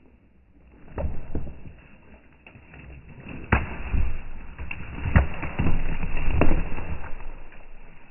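Felled pine log sliding and tumbling down a rock slope: a heavy thud about a second in, then a run of thuds between about three and a half and six and a half seconds, with scraping of the log over rock and forest litter in between.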